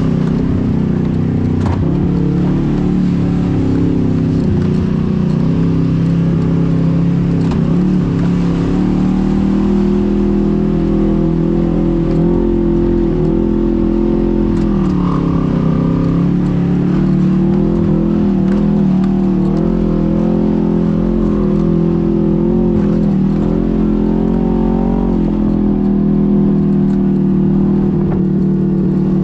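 A vehicle engine running steadily under way over a low rumble of road and wind noise. Its pitch dips and recovers a few times around the middle.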